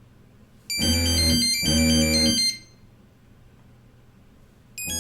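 Mobile phone ringtone preview: a short electronic melody in two phrases plays from about a second in and stops, then starts again near the end.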